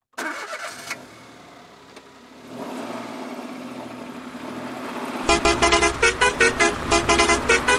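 Animated logo intro sound effects: a steady hum swells, then about two-thirds of the way in a fast run of short pitched blasts starts over a heavy low rumble.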